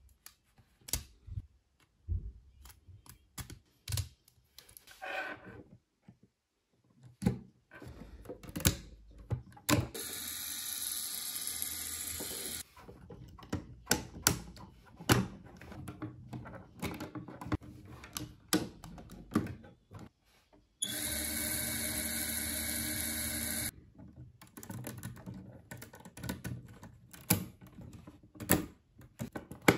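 Lego Technic plastic pieces clicking, snapping and knocking together as they are fitted by hand. Twice, about ten seconds in and again about twenty-one seconds in, a battery-powered Lego electric motor runs steadily for about three seconds, turning its gears and drive wheel.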